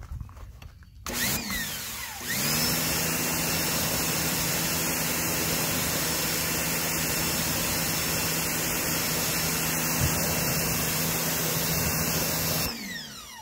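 Sun Joe electric pressure washer's motor spinning up as the trigger is pulled, with a short burst about a second in. It then runs steadily with the hiss of the water jet for about ten seconds, and winds down with falling pitch near the end as the trigger is released.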